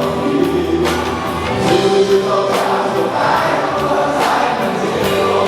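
Live rock-ballad performance: a band playing with drums, under sung vocals that sound like many voices together.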